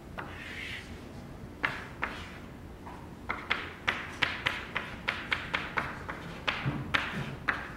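Chalk writing on a blackboard: sharp taps of the chalk against the board, two about a second and a half in, then a quick irregular run of them, about three or four a second, from about three seconds in to near the end.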